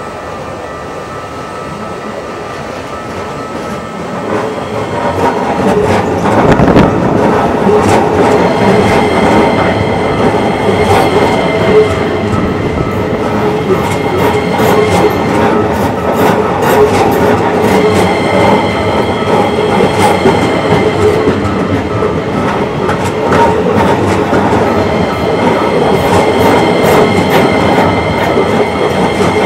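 Electric commuter train on the Keikyu line passing over a level crossing, its wheels clattering over the rail joints. The sound builds about four seconds in, stays loud, and falls away near the end.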